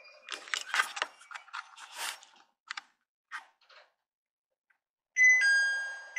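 A string of light clicks and knocks, then, near the end, a loud electronic two-tone chime sounds twice, each a high note stepping down to a lower one (ding-dong, ding-dong).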